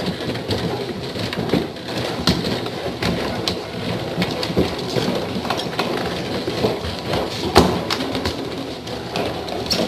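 Many people's footsteps going down a wooden spiral staircase: a continuous patter of irregular thuds and knocks on the treads, with one sharper, louder knock about seven and a half seconds in.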